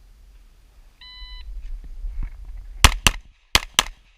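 Electronic shot-timer beep, one short steady tone, followed after about a second and a half by four pistol shots in two quick pairs.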